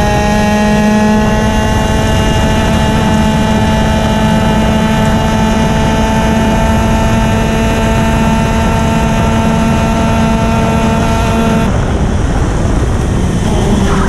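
Racing kart engine held at high revs, heard from on board, its note climbing slightly over a steady rush of noise. About twelve seconds in, the engine note drops away as the kart reaches a corner, then starts to climb again right at the end.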